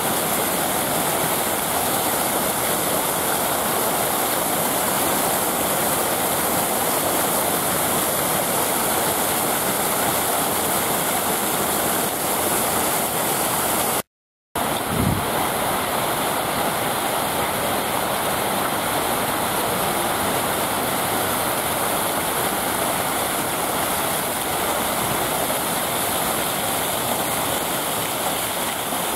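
Trocadéro fountain jets spraying and splashing into their basins, a steady rush of falling water. It cuts out for a moment about halfway through.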